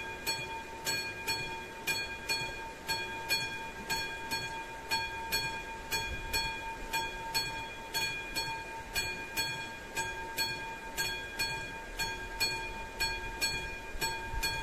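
Classic mechanical bell of an AŽD 71 railway level-crossing warning signal ringing steadily, a little over two strikes a second, each strike leaving a ringing tone. The crossing is in its warning state, signalling that a train is due.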